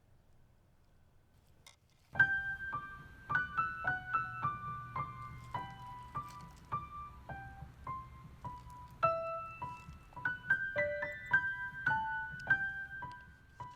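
A small click, then a high, tinkling melody of single plucked notes, a music box playing, starts about two seconds in and runs on over a faint low hum.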